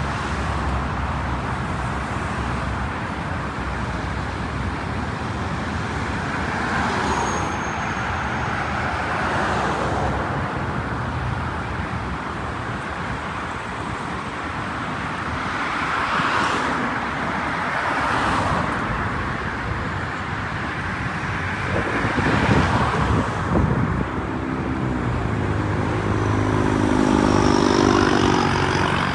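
Road traffic: a steady wash of car noise with several vehicles swelling past, and a vehicle engine humming close by near the end.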